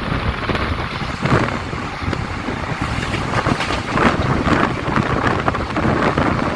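Passenger train running at speed: steady rumble with irregular rattles and knocks from the coach, and wind buffeting the microphone.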